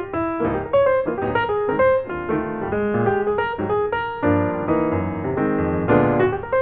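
Background piano music, notes played one after another in a continuous run.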